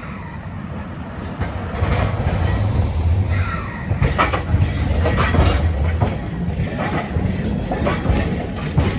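Hakodate City streetcar running along its track, heard from inside the car: a low rumble that grows louder about two seconds in, with a string of knocks and clatters from the wheels on the rails.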